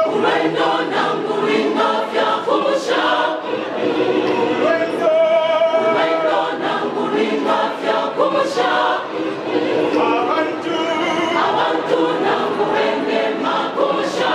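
Church choir singing a gospel song together, with some long held notes.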